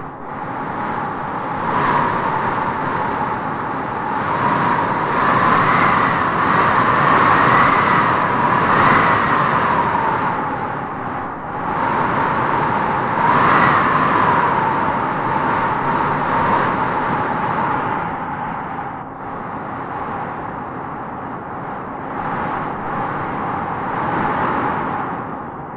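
Wind howling in gusts: a steady rush with a whistling tone that swells and rises in pitch as each gust peaks, strongest about a quarter of the way in and again about halfway through.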